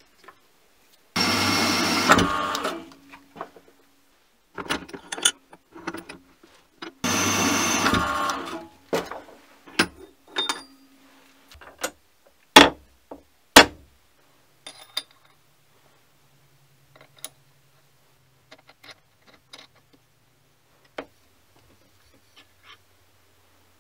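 Two bursts of hissing noise, each about a second and a half long and a few seconds apart. Then a run of metal clicks and knocks as a steel 1-2-3 block and tooling are set into a milling machine vise, with two loud, sharp metal strikes about a second apart near the middle.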